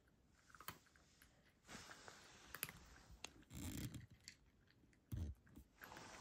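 Cat eating dry kibble from a bowl: faint, irregular crunching and small clicks, with a dull thump about five seconds in.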